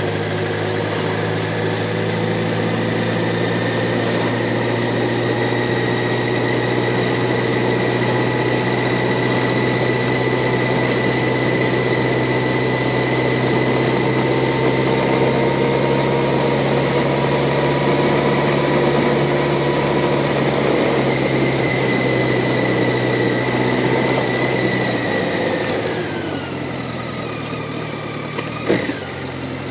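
BMW K1100LT's inline-four engine running at a steady cruising speed. About 25 s in, the engine note falls as the bike slows, and a short knock comes near the end.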